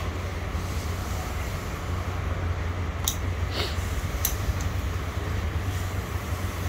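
Steady low machine hum, like a fan or motor running, with a few short clicks and a brief hiss about three and a half seconds in.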